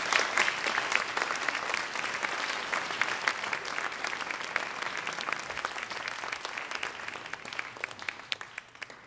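Audience applauding: a dense spread of hand claps that starts loud right after the music ends and gradually thins out and dies away near the end.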